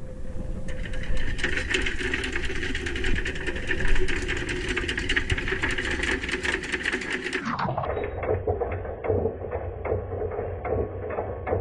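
A motor running with a dense, rapid rattle. About seven and a half seconds in its pitch drops and the sound turns duller, then it runs on.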